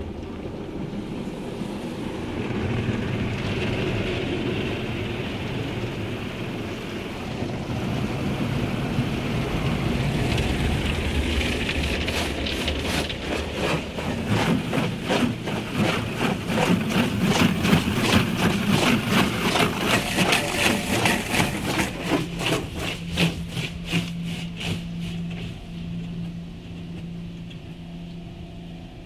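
PDQ ProTouch Tandem automatic car wash spraying water onto the car, heard from inside the cabin. A rushing spray builds, then turns into a fast, even pulsing of about three beats a second as the jets sweep over the body and glass. A steady low hum joins near the end while the spray fades.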